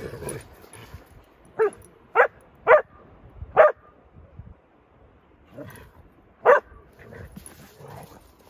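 A dog barking in rough play with other dogs: four sharp barks in quick succession, then one more a few seconds later.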